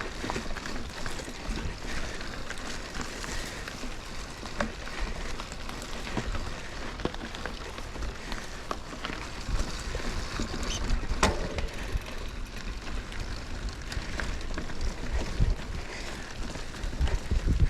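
Mountain bike climbing a steep singletrack over tree roots: a steady rustle of tyres on the dirt with scattered clicks and knocks, one sharp knock about eleven seconds in, and wind rumble on the microphone.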